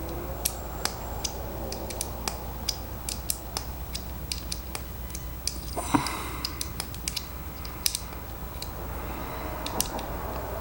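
Small metal tool and knife parts clicking and ticking while screws on a folding knife are worked loose, with a louder knock about six seconds in.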